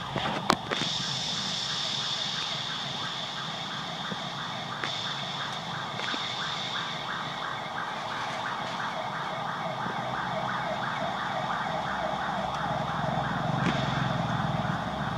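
Steady, high-pitched drone of forest insects with a fast pulsing rhythm underneath. There is a single sharp click about half a second in, and a low rumble swells near the end.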